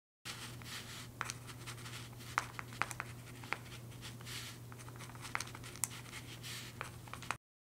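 Pen scratching on paper as words are written, with scattered sharp ticks and a steady low hum underneath. It starts and cuts off abruptly.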